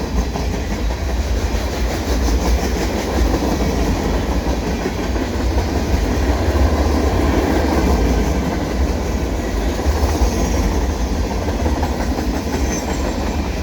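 Freight cars of a CN manifest train rolling past at steady speed. A continuous deep rumble runs with the wheels clicking over the rail joints.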